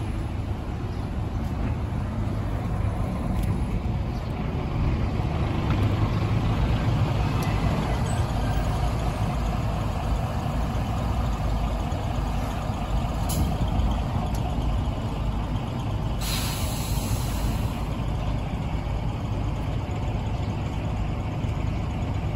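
Scania L94UB city bus with engine running in a steady low rumble as it pulls in and stands at the stop. About two-thirds of the way in comes a burst of compressed-air hiss from its pneumatics, lasting a couple of seconds.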